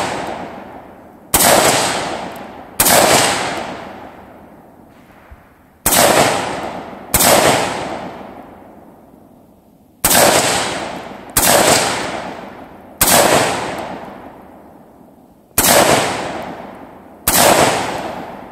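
AR-15 semi-automatic rifle fired nine single shots at an uneven pace, about one to three seconds apart. Each shot is a sharp crack that trails off over a second or two.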